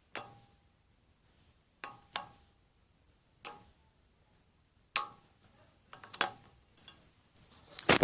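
Plastic slime containers being closed and handled: a series of separate sharp clicks and knocks, about seven of them spaced a second or so apart, with a busier cluster near the end.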